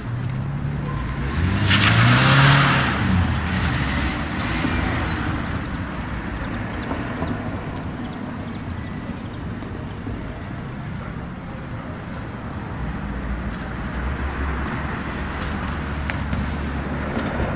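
Small town-centre street ambience with light traffic: a car passes close about two seconds in, its engine note and tyre noise swelling and then fading, followed by a steady background of more distant traffic.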